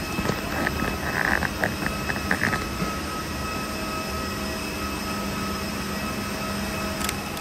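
Steady airport machinery drone with faint hum tones inside a jet boarding bridge, from the aircraft and air handling around the gate. A few faint clicks come between about one and two and a half seconds in.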